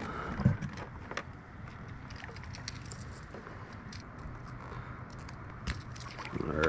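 Scattered light clicks and rattles of fishing pliers against a lure's metal hooks as it is worked free of a bass in a landing net, over a steady low hum.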